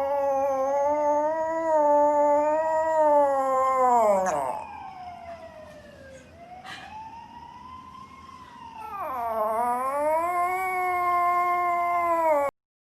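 A dog howling in two long, wavering notes, the second beginning about nine seconds in, with a fainter rising-and-falling tone between them. The sound cuts off abruptly shortly before the end.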